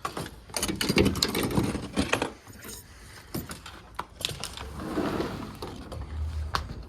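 A run of sharp clicks, knocks and rattles from metal and wooden objects being handled, dense for the first two seconds, then scattered knocks.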